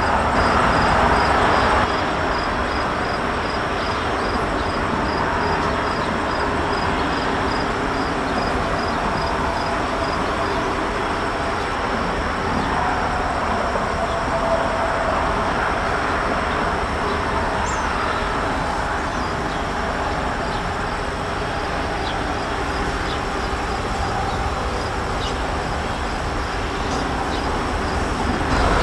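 Norfolk Southern freight train passing at a distance: diesel locomotives running by, then covered hopper cars rolling on the rails, a steady noise throughout. The level drops slightly about two seconds in.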